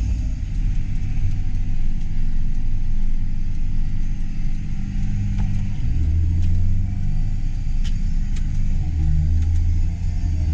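Vehicle engine running while driving, a steady low rumble whose pitch shifts about six seconds in and again near nine seconds.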